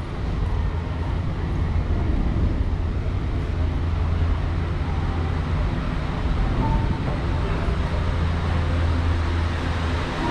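Steady low hum and rumble of a moving vehicle, heard from inside, with faint voices in the background.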